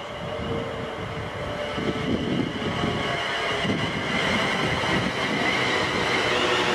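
Class 350 Desiro electric multiple unit approaching and running alongside the platform, its wheels rumbling on the rails and its motors humming. The sound grows steadily louder as the train nears.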